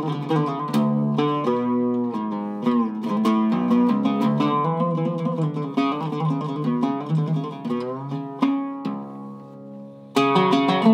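Zaryab Iraqi-style oud with a cedar top and mahogany back, plucked with a pick: a quick melodic run of single notes with some bends and slides. Near the end the notes die away, then a loud new stroke starts another phrase.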